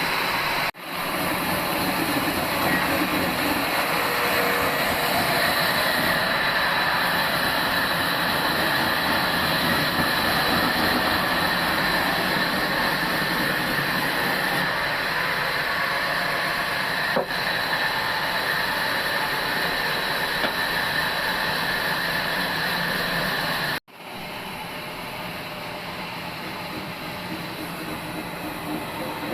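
Old band sawmill running and sawing a log: a steady machine noise with a thin high whine, strongest through the middle. The sound breaks off for an instant about a second in and again near the end, and it is quieter after the second break.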